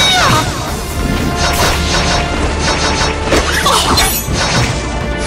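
Dramatic background music over a run of fight sound effects: repeated sharp hits and crashes.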